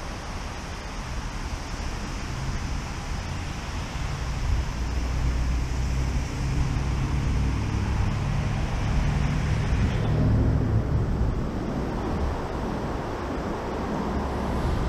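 Steady rushing background noise with a low rumble; the higher hiss drops away about ten seconds in.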